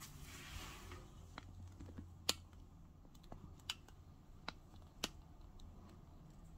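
Faint, irregular sharp clicks and ticks, about eight over several seconds, the loudest a little over two seconds in, over a faint steady low hum.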